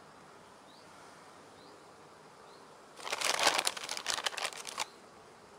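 A hand rummaging in a plastic bag of hard carp boilies, the bag crinkling and rustling for about two seconds from about three seconds in.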